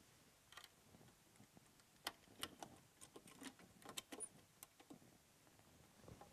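A run of small, sharp metal clicks and clinks as a church tabernacle is unlocked and opened and the vessels inside are handled, bunched between about half a second and five seconds in.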